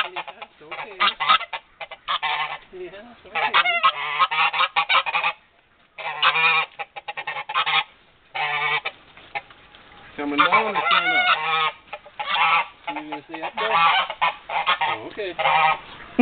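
Domestic geese, an African goose and a Dewlap Toulouse gander, honking over and over in a long string of loud calls with only brief pauses.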